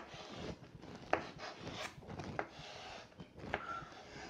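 Chalk scratching across a chalkboard as a word is written, with a few sharp taps of the chalk against the board.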